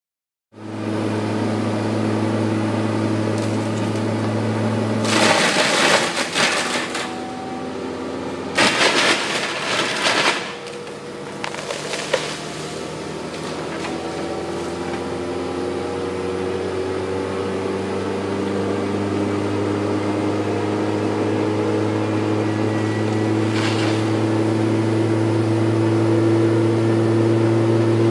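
A John Deere 200C excavator running a hydraulic grinding head with sharpened teeth, a steady machine hum, cuts into a 14-inch red oak: about five seconds in and again around nine seconds come two loud bursts of the teeth chewing and splintering the wood. Over the second half the hum slowly climbs in pitch.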